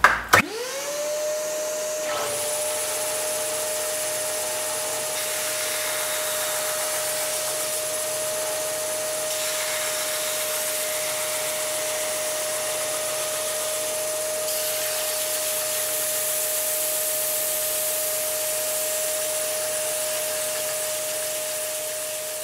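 A belt sander with a dust-extraction vacuum hose on its 3D-printed dust cowl, both running together during a test of the cowl's suction. A whine rises to a steady pitch within the first second and holds over a steady hiss, then fades away near the end.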